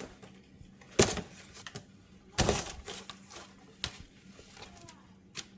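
Clattering of parts and tools being handled: a sharp knock about a second in, a longer clatter a little past the middle, then a few light clicks.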